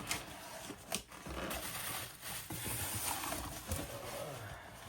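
Cardboard box and packing material being handled: rustling and scraping, with a couple of light knocks in the first second.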